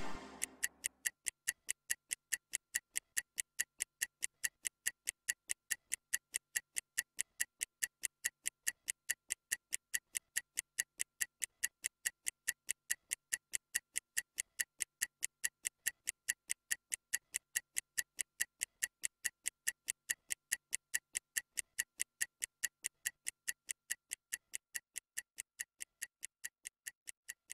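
Stopwatch ticking: an even run of sharp ticks, several a second, that grows slightly fainter near the end. It times a 30-second rest between exercises.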